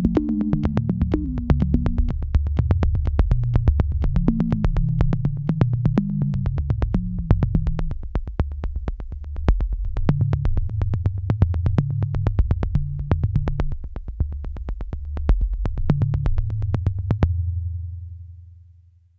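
Electronic background music: a deep synth bass line under fast, even hi-hat ticks. The ticks stop near the end and the bass fades out.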